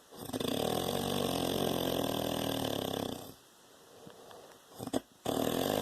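A man snoring in his sleep: one long snore lasting about three seconds, then a quieter breath with a few faint clicks, and the next snore starting near the end.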